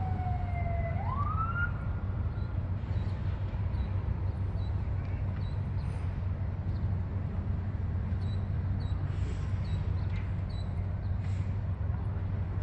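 An emergency vehicle siren wails, falling and then rising in pitch before fading out about two seconds in, over a steady low rumble.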